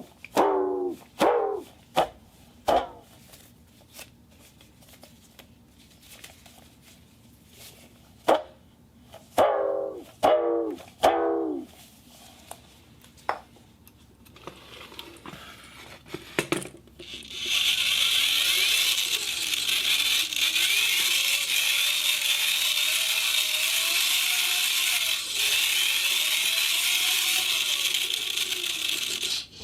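Foley sound test: two runs of short pitched notes, each sliding quickly downward in pitch, then a few faint clicks. After that comes a loud, steady, airy hiss with faint tones slowly wavering up and down beneath it.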